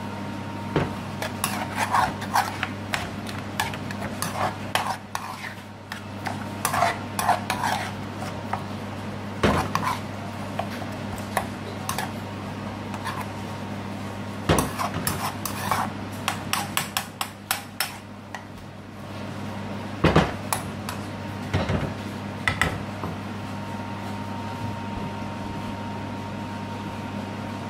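A utensil stirring thick spinach-and-meat curry in a metal frying pan, with irregular clinks and scrapes against the pan. A steady low hum runs underneath.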